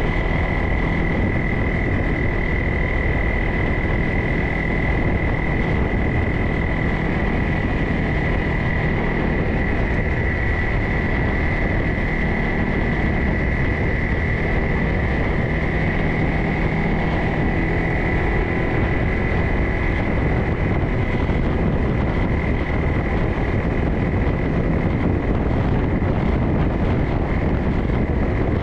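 Off-road vehicle riding along a forest trail: a constant rumble of engine and wheels with a steady high-pitched whine over it.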